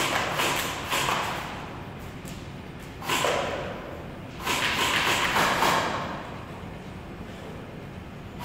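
Airsoft guns firing: a few sharp shots in the first second, a short burst about three seconds in, and a longer rattle of rapid fire from about four and a half to six seconds.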